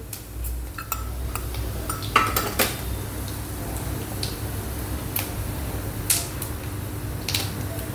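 Cumin seeds crackling in hot ghee in a kadhai, the start of a tempering (tadka): scattered sharp pops at irregular intervals over a faint sizzle.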